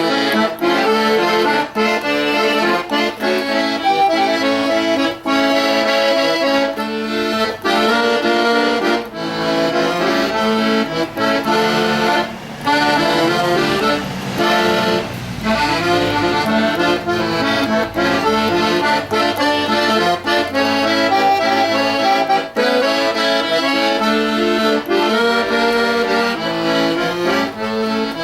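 Accordion playing a continuous tune, with melody notes over a sustained low chord.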